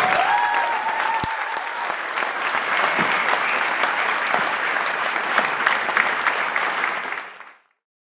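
Large seated audience applauding a live big band, a dense steady patter of many hands clapping that fades out near the end.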